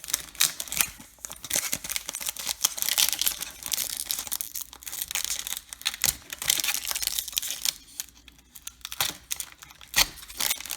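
Trading-card pack wrapper being crinkled and torn open by hand, in repeated bouts of crackling with short pauses, as the pack resists opening.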